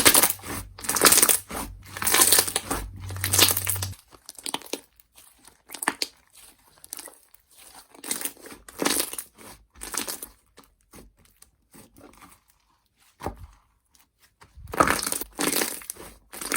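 Slime being squished and worked by hand, making irregular crackling squelches several times a second. The sounds are louder at the start and near the end, with a quieter stretch in between.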